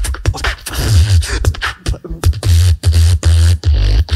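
Solo beatboxing through a microphone: rapid mouth clicks and snare-like hits over heavy bass kicks, closing with a long held bass tone near the end.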